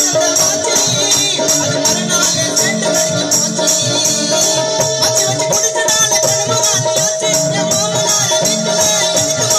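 Live gana song played loud through a PA system: a man singing into a microphone over electronic keyboard and percussion, with one keyboard note held steadily through most of it.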